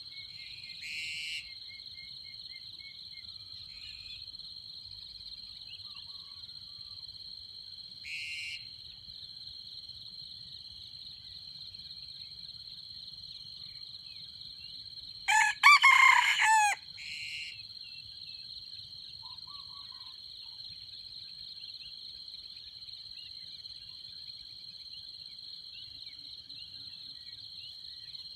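Red junglefowl rooster crowing once about halfway through, a short clipped crow over a steady high drone of insects. A few brief sharp high calls sound at intervals.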